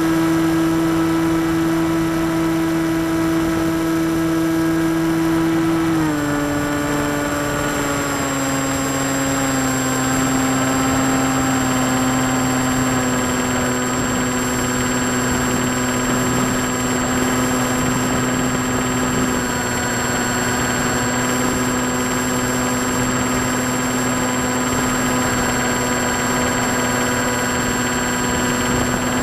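Model airplane's motor and propeller whining steadily, heard from the onboard camera over a rush of air. About six seconds in, the pitch steps down and then holds at a lower steady tone, and a thin high whistle joins it.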